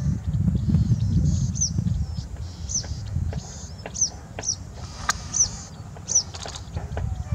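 Citrine wagtail calling: short, high, falling notes repeated about once a second, over a steady low rumble.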